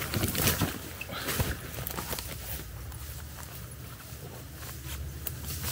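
A hiker jumping down a bank: a few thumps and scuffs of the jump and landing in the first second and a half, then quieter footsteps.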